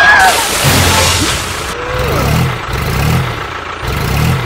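Truck engine labouring, swelling and easing about four times, with a burst of hiss at the start.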